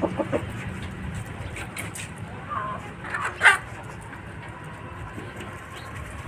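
Chickens calling and clucking in short, scattered calls, with one loud, sharp call about three and a half seconds in.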